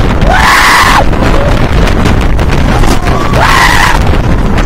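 Roller coaster riders screaming twice, each a high cry of about a second, over a constant loud rush of wind on the microphone and the rumble of the train on the wooden track.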